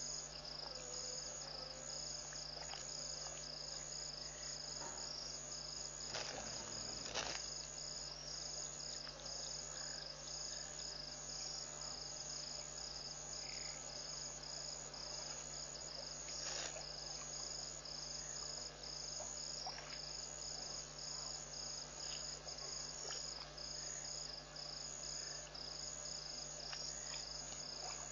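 Crickets chirping in a steady, evenly pulsed high trill, over a low steady hum. Two brief clicks sound about six and seven seconds in.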